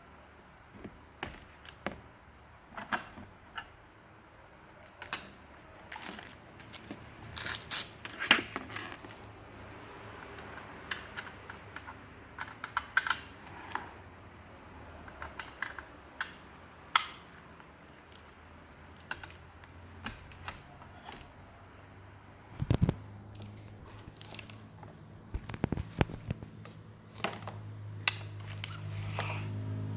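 Irregular clicks and taps of small hard parts being handled, at uneven spacing, some louder than others. A low steady hum comes in and grows over the last few seconds.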